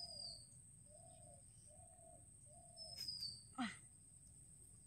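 Faint birdsong: a bird giving a series of four evenly spaced low cooing notes, and a thin high whistle that falls in pitch, heard at the start and again about three seconds in.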